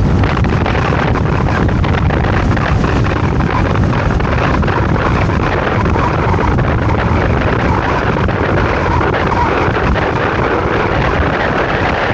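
Steady wind rush buffeting the microphone of a camera riding on a moving scooter, with the scooter's running and road noise mixed in.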